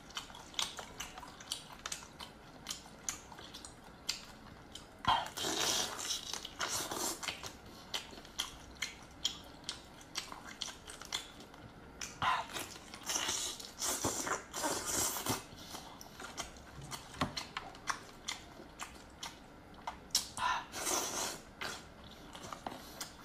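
Close-miked chewing and biting of boiled prawn meat, a steady run of small wet mouth clicks. There are louder stretches of biting about five, twelve and twenty seconds in.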